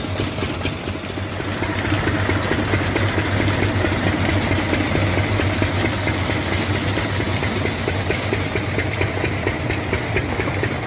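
New Holland tractor's diesel engine running steadily, a constant low hum with fine mechanical clatter, growing louder about two seconds in.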